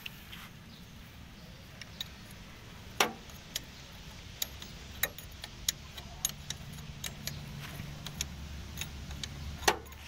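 A steel spanner clinking against the bolts of an air compressor's diaphragm valve housing: scattered sharp metal clicks, with two louder ones about three seconds in and near the end. A low steady hum runs underneath.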